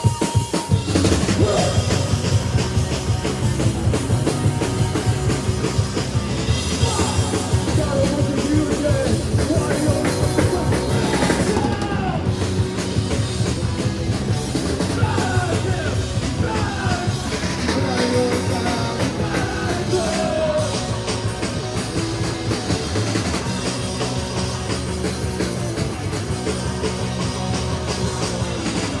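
Live punk rock band playing at full volume, with a drum kit driving it. A singer comes in over the band about six seconds in.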